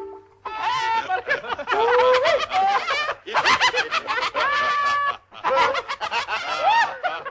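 Several cartoon characters' voices laughing hard together, overlapping, in three long stretches with two brief breaks, about three and five seconds in.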